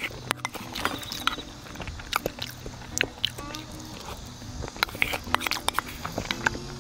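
Close-miked eating of beef seaweed soup with rice: chewing and mouth sounds with many short, sharp clicks, over background music.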